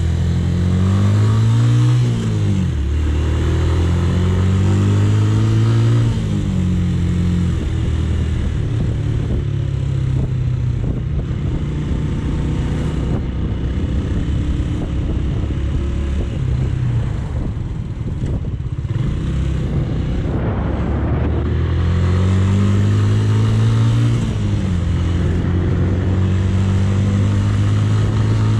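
Romet K125's 125cc single-cylinder engine pulling up through the gears, its pitch rising and dropping at upshifts about two and six seconds in. Then a long stretch where steady road and wind rush covers a low engine, before it climbs again and shifts near the end.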